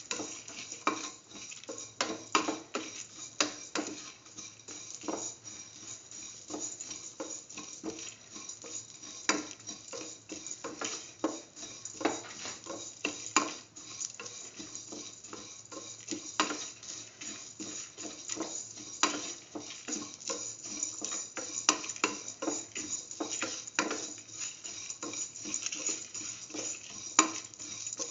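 A utensil stirring and scraping against a steel pan as onion, garlic, ginger and whole spices are sautéed, with several irregular scrapes and knocks a second. A steady sizzle of frying in oil runs underneath.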